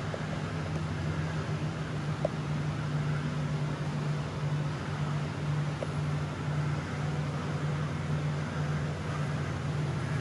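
Electric air-handling units running in a stone chamber: a steady low hum over an airy hiss, with two faint clicks.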